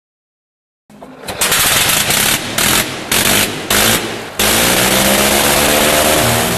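Early rotary aircraft engine sound starting about a second in, loud and rough, cutting out and back in about five times in quick succession, then running on steadily with its pitch rising slightly.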